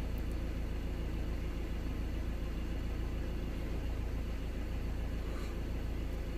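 Ford Transit van's engine idling steadily, a low even hum heard from inside the cab.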